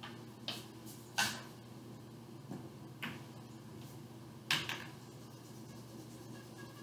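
Pool balls clacking across two shots, with sharp clacks of cue on cue ball and ball on ball. The loudest comes about a second in and another about four and a half seconds in, with softer knocks between them. A low steady hum runs underneath.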